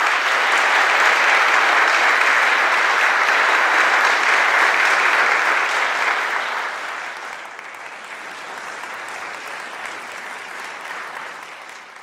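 Audience applauding, loud for about the first six seconds, then quieter and thinning out.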